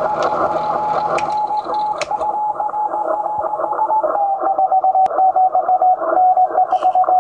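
Morse code received on a 10-metre ham radio transceiver: a single beat-note tone keyed in dots and dashes over band hiss. Its pitch steps slightly lower about four seconds in as the receiver is retuned.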